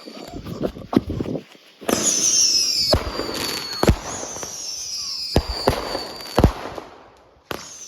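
Consumer fireworks going off: crackling hiss with several whistles that fall in pitch, broken by a series of sharp bangs.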